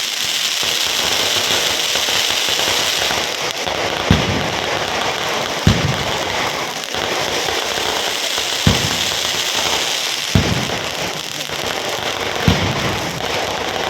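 Firecrackers going off: a dense, continuous crackling with five louder single bangs spaced roughly one and a half to three seconds apart.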